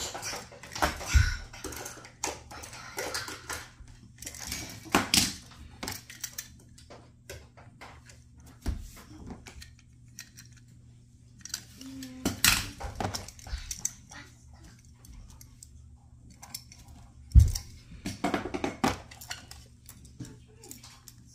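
Die-cast toy cars and a toy helicopter clicking and clattering against each other and the sides of a plastic bin as they are picked up and handled, in scattered irregular knocks with a few sharper ones standing out.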